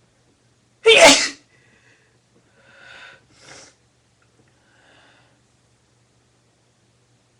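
A single loud, sudden human sneeze about a second in, followed by a few much softer noises over the next few seconds.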